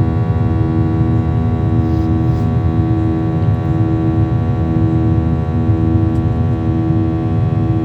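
Cabin noise of a Boeing 737-800 climbing after takeoff: the steady drone of its CFM56-7B turbofan engines, several steady humming tones over a low rush of airflow, one tone gently swelling and fading every second or two.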